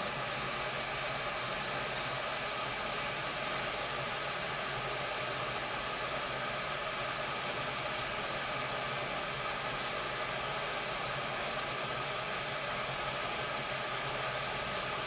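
Hot air rework gun blowing steadily at 250 °C onto a phone motherboard's charging-port solder pads, heating the high-temperature solder to melt it off.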